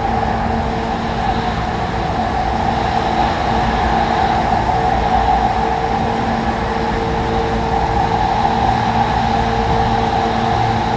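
JR 185 series electric multiple unit running at a steady speed: continuous running noise with a steady hum.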